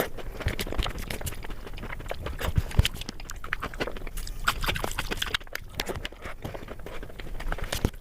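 Close-miked eating of chicken biryani: wet chewing and mouth sounds made up of many small, irregular clicks and smacks, with a few soft low thumps a little under three seconds in.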